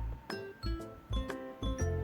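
Background music with a steady beat, about two a second, and bright chiming notes.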